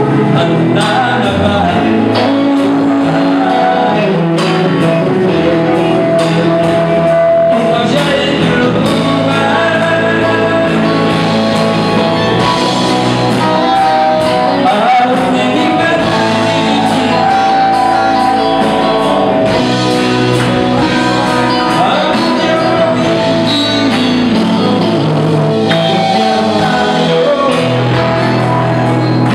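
Live rock band playing: electric guitars, electric bass and drum kit under a sung vocal line.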